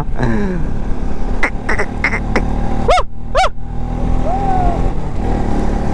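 Motorcycle running at road speed, with a steady low engine and wind rumble. About three seconds in come two quick rising-and-falling calls.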